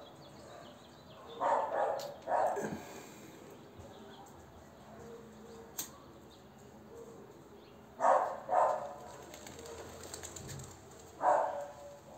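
A dog barking, mostly in pairs of short barks: two, a long pause, two more, then one more near the end.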